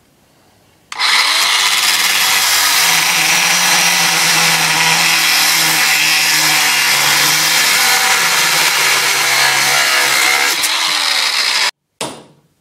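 Angle grinder with a cut-off disc spinning up about a second in, then cutting through a steel bar with a loud, steady grinding whine for about ten seconds; the pitch dips and falls near the end before the sound cuts off. A single short knock follows.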